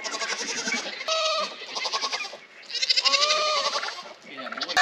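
Goats bleating, several loud, quavering calls one after another.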